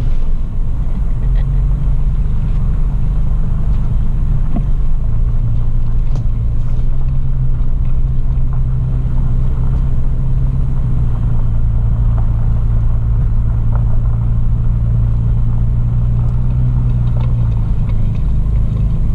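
Toyota FJ Cruiser's V6 engine droning steadily at low speed, heard from inside the cabin as it drives along a dirt trail, with a few light clicks and rattles.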